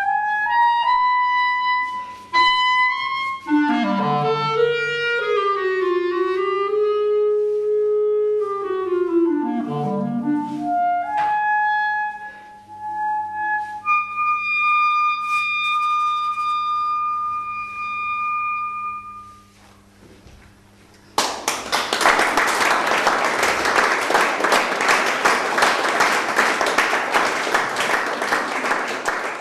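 Solo clarinet improvising: bending, gliding phrases that sweep down into the low register, then one long held high note that stops about twenty seconds in. After a brief pause an audience bursts into applause.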